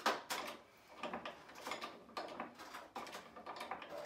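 Small hydraulic trolley jack being pumped to raise the front of a mini motorcycle: a series of short mechanical clunks and creaks, about two a second.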